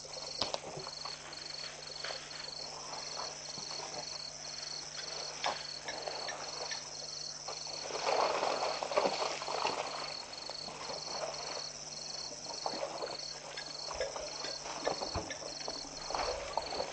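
An insect chirping steadily at an even, high pitch, about two to three chirps a second, with a second, higher insect trill coming and going. Scattered knocks and a louder spell of rustling come about eight seconds in.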